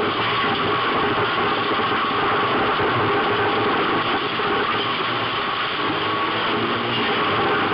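A dirt-track race car's engine running hard, heard from inside the cabin together with a dense, steady rush of noise. The level stays even throughout, with no clear rise or fall in revs.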